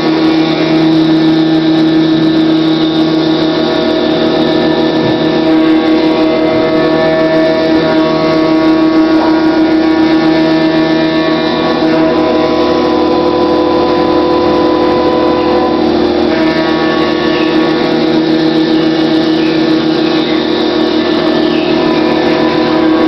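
Haas Mini Mill 2 CNC mill machining a part: a loud, steady whine of the spindle and cutter made of several held tones, with the tone pattern shifting about halfway through and again a few seconds later.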